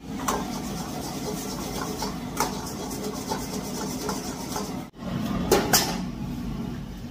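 Fried rice being stir-fried in a wok over a gas wok burner: a steady rush of burner and frying noise, with the metal ladle scraping and clanking against the wok, the loudest two clanks close together near the end.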